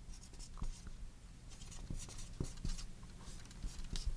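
Faint handling noises: scattered light clicks and rustles of small parts being picked up and moved, over a low steady electrical hum.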